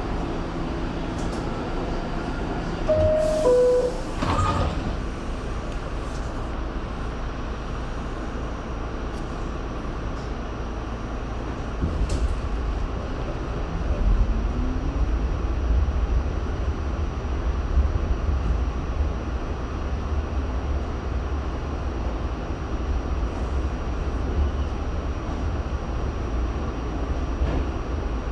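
R68 subway car: a two-note falling door chime and the doors closing with a burst of noise, then about twelve seconds in the train starts off, a louder low rumble of wheels setting in and a motor whine rising in pitch as it gathers speed.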